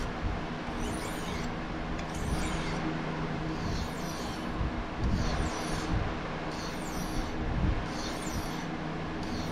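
Steel blade of a Marttiini fillet knife being drawn by hand across a sharpening stone: a dry scrape on each stroke, about seven strokes at roughly one every second and a quarter, while the edge is worked toward sharp. A steady low hum runs underneath.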